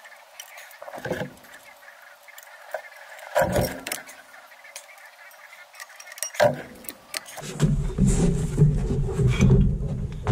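Hand tool working the shoe adjuster of a rear drum brake on a bare backing plate: scattered small metal clicks and scrapes with three louder knocks about a second, three and a half and six and a half seconds in. Near the end a loud low rumbling noise takes over.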